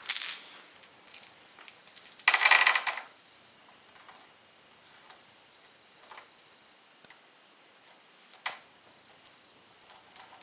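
Game dice tipped out of a cloth bag, clattering onto the player mat in a dense burst about two and a half seconds in after a short click at the start. Then scattered single clicks as the dice are picked over and moved, with one sharper click near the end.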